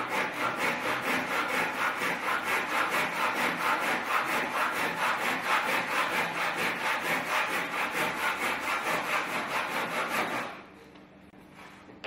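Hand saw cutting through a softwood board at an angle, removing the waste from a slanted edge in quick, even back-and-forth strokes. The sawing stops about ten and a half seconds in, as the cut goes through.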